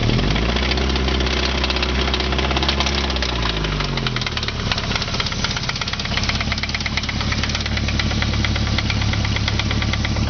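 Nissan KA24E 2.4-litre four-cylinder engine briefly revved just after the start, held, then dropping back to idle around four seconds in, with a steady rapid knocking all through: rod knock.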